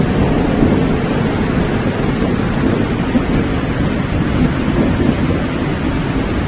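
Steady rain with a low, continuous rumble of thunder underneath; no single sharp thunderclap.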